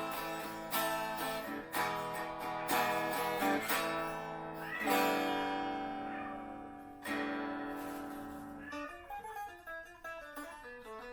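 Eko Camaro electric guitar played unplugged: a run of strummed chords, then two chords left to ring out about five and seven seconds in, then lighter picked notes near the end.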